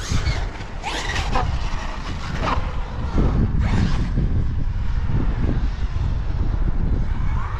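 Losi Super Baja Rey 2.0 1/6-scale RC truck, on 8S power, driving hard: its 750kv brushless motor and drivetrain whining, rising and falling with bursts of throttle, over tyre noise on grass and pavement.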